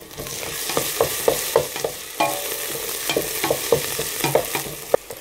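Chopped onions sizzling as they fry in plenty of olive oil in a stainless steel pot, with a few knocks and scrapes a second from stirring against the pot, one ringing briefly about two seconds in. The onions have fried hard and caught in places.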